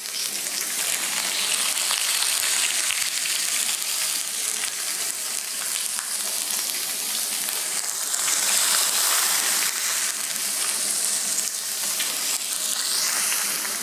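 Oiled salmon steaks frying on a preheated ridged grill pan: a steady hiss full of fine crackles that swells briefly about eight seconds in.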